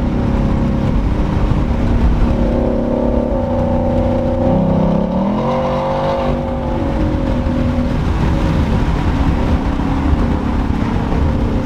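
2020 Ford F-150's 5.0L V8 running through high-flow pipes and a MagnaFlow exhaust, heard from inside the cab while driving. About halfway through, the engine note dips, then climbs quickly as the revs rise, and settles back to a steady cruise.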